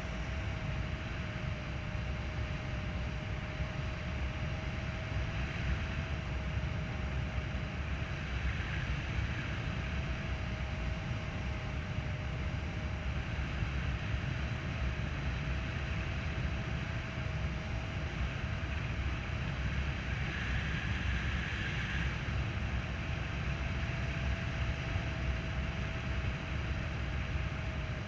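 Wind rushing over the camera microphone in paraglider flight: a steady, even rumbling noise, with a faint steady tone running underneath.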